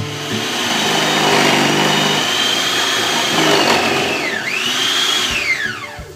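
Electric kitchen blender motor running at full speed with a high whine. The whine dips briefly about four seconds in, recovers, then falls away as the motor winds down near the end.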